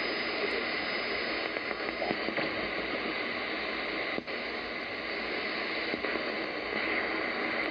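Shortwave static and hiss from a DSP SDR (Malachite clone) receiver in AM mode, tuned between weak stations on the 49-metre band. The noise drops out briefly about four seconds in.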